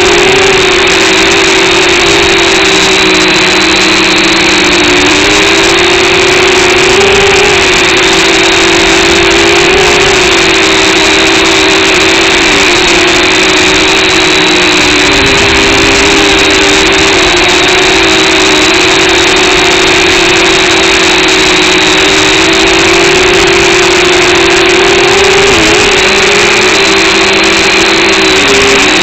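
Quadcopter drone's electric motors and propellers buzzing loudly and steadily in flight, the pitch wavering and dipping briefly now and then as the motors change speed.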